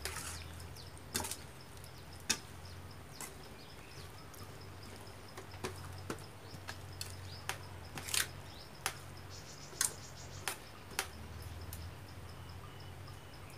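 A metal spoon tossing a moist banana blossom salad in a stainless steel bowl, with sharp clinks of spoon against bowl coming irregularly, about one a second at times, over a low steady hum.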